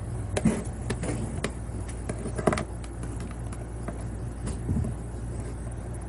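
Plastic toy figurines being handled and set on a tabletop: a few soft knocks and clicks, the loudest about half a second and two and a half seconds in, over a steady low hum.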